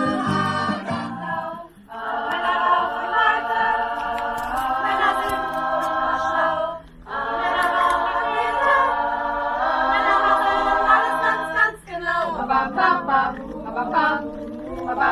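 Women's choir singing a cappella in close harmony: long held chords, broken by a short breath about seven seconds in, turning to faster-moving lines near the end. A brief bit of other music cuts off about two seconds in.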